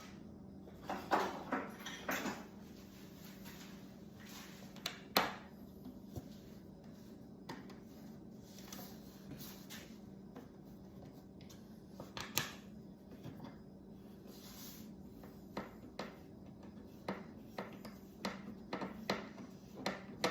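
Intermittent clicks, clinks and knocks of metal parts and hand tools being handled at a table saw, with a sharp knock about five seconds in, over a steady low hum.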